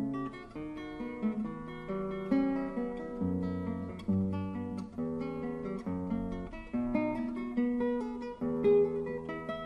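Background music: acoustic guitar playing a steady run of plucked notes and chords.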